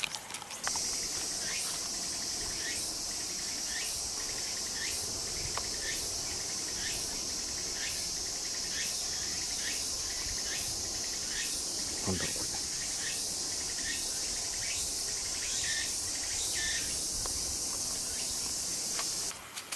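Cicadas in summer woodland: a dense, steady high-pitched chorus with a regular pulsing call about twice a second.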